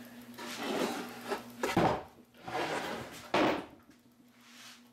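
Pine 2x4 boards and a plywood sheet being handled on a workbench: wood sliding and scraping, with a sharp knock about two seconds in and another a little after three seconds.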